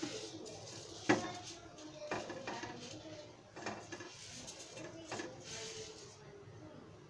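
Silicone spatula knocking and scraping against a non-stick frying pan as a folded rice-flour pancake is turned and pushed around to brown, a handful of sharp knocks, the loudest about a second in.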